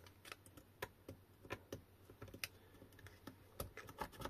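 Faint, irregular light clicks and taps of a pointed metal tool being worked over the nickel strips and cell ends of an opened lithium e-bike battery pack.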